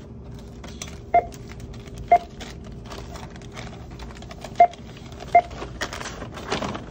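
Checkout barcode scanner beeping four times as items are scanned, the beeps short and evenly pitched. Soft clicks and handling noise run between them, turning into paper-bag rustling near the end as items are bagged.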